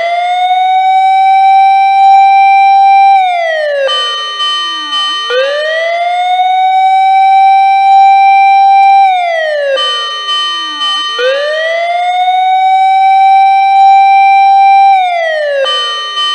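A siren wailing in slow cycles: it rises over about two seconds, holds a high steady pitch for a few seconds, then falls, repeating about every six seconds, about three times.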